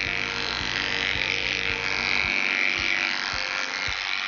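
Cordless electric dog clipper with a snap-on comb running with a steady buzz as it skims hair off a miniature poodle's front leg.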